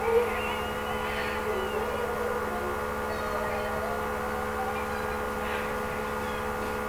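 Steady electrical hum, with faint wavering tones underneath.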